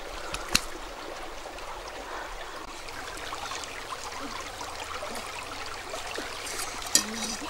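Shallow stream running over a muddy bed, a steady rush of water. A sharp click comes about half a second in, and another sharp snap near the end.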